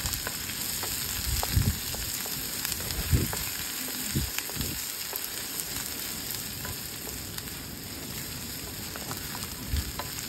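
Chopped onions sizzling in oil in a small black kadhai, stirred with a flat spatula that scrapes and knocks against the pan now and then.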